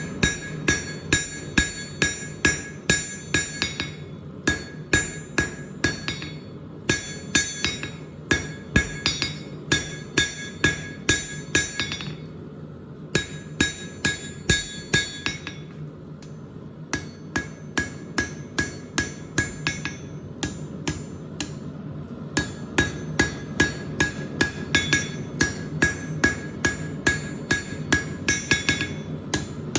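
Blacksmith's hammer striking a hot 1/2-inch square steel bar on an anvil in runs of quick, even blows, about three a second, with short pauses between runs. Each blow rings with a bright metallic ring, over a steady low hum.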